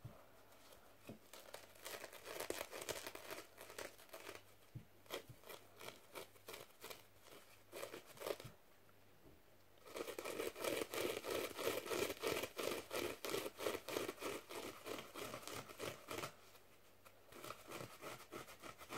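Fingertips scratching and rubbing a fluffy sponge microphone cover, right against the mic. Runs of quick scratchy strokes come with short pauses between them, and the longest and loudest run falls in the middle.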